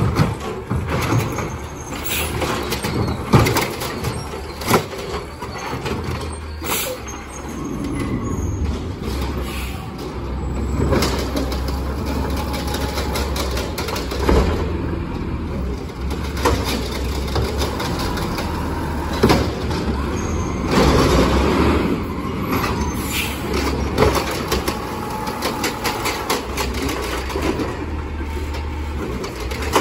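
Peterbilt 520 automated side-loader garbage truck running on natural gas, its engine humming steadily while the hydraulic arm grips, lifts and dumps wheeled carts, with repeated clanks from the arm and carts.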